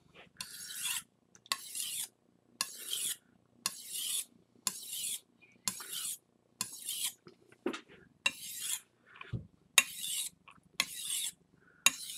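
Chef's knife blade being stroked across a wet 6,000-grit whetstone coated in a polishing paste, under light pressure. It makes a short rasping hiss with each pass, about one stroke a second, in the polishing stage of sharpening.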